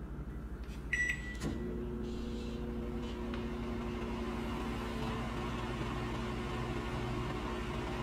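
Microwave oven being started: a short high beep from the keypad about a second in, a click, then the oven running with a steady low hum.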